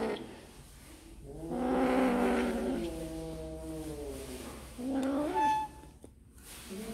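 Cat meowing in long, drawn-out calls: one long call starting about a second and a half in and lasting about three seconds, a shorter one about five seconds in, and another starting near the end.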